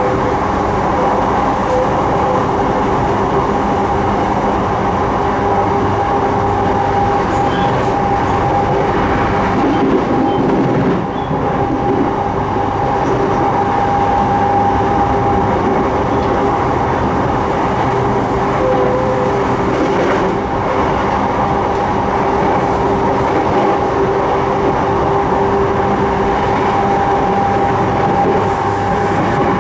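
Sotetsu 12000 series electric train running at a steady speed: wheel-and-rail running noise with a steady whine holding one pitch.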